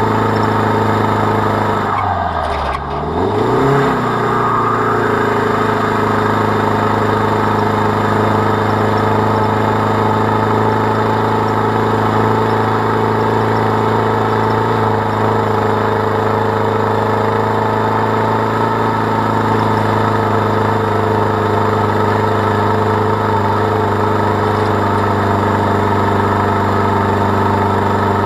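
Land Rover Defender 110's remapped TDCi diesel engine running steadily under load while towing uphill, heard from the trailer behind it. About two seconds in the revs drop briefly and climb back.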